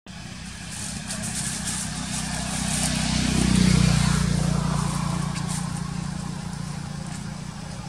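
A motor vehicle's engine running as it passes: a low hum that grows louder to a peak a little before halfway through, then slowly fades.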